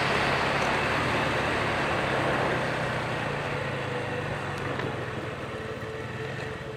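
Wind rushing past the microphone over a motorcycle engine running while riding on the highway, the rush easing off steadily as the bike slows down.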